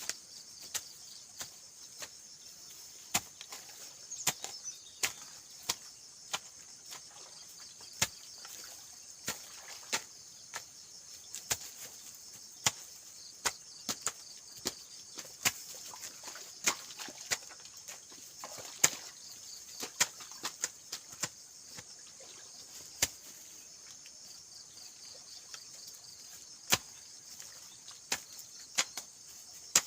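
Irregular, sharp chopping strikes of a hand tool, about one or two a second, over a steady high chorus of crickets.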